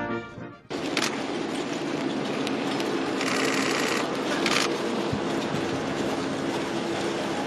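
Hooves of a team of grey carriage horses and the wheels of a horse-drawn state coach on a gravel parade ground: a steady, even clatter. Brass band music breaks off just under a second in.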